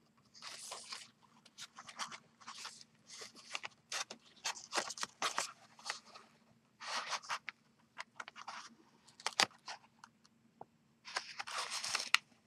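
Cardstock and patterned paper rustling, scraping and crinkling under the hands as pieces of a paper backpack are handled and pressed together, in short irregular bursts with little clicks.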